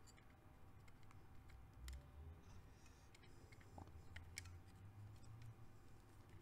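Near silence with a few faint, scattered clicks and taps of metal parts being handled: the Honda CBX cam chain tensioner assembly being fitted onto the engine case.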